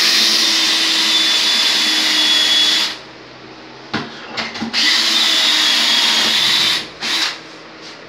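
Cordless drill boring into a ceramic-tiled wall with a steady high whine, in two runs of about three and two seconds. A few light knocks fall between the runs.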